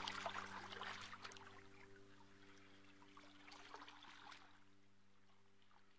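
Faint running water trickling and fading away over a steady low hum.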